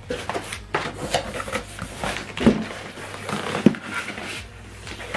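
Cardboard printer carton being opened and handled: flaps and inner cardboard packing scraping and rustling, with irregular knocks, the sharpest about two and a half and three and a half seconds in.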